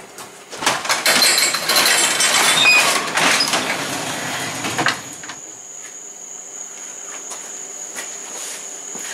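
A sectional garage door pushed up by hand, its rollers rattling along the tracks for about four seconds and ending with a knock as it opens. After it is open, a steady high chirring of insects, like crickets, carries on.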